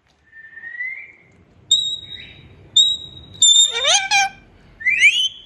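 Pet parrot whistling and calling: a soft rising whistle, two clear high steady whistles about a second apart, then a run of loud, sweeping, harsh calls with a rising call near the end.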